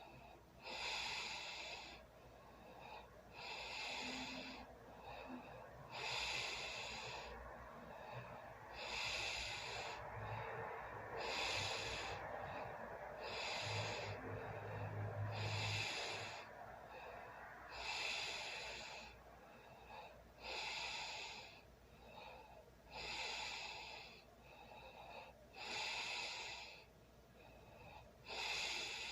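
A sleeping person snoring and breathing heavily, with a hissy breath about every two and a half seconds. A low snore sounds in the middle.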